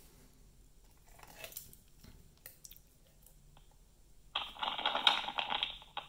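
A smartphone speaker plays one of a walkie-talkie app's built-in novelty sound effects: a crackly, noisy sound that starts suddenly about four seconds in and lasts about a second and a half. Before it there are faint handling rustles and clicks as a smartwatch is picked up.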